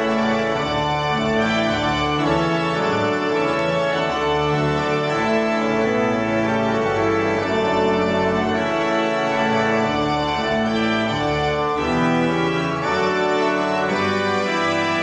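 Pipe organ playing slow, held chords that change every second or so, over deep bass notes.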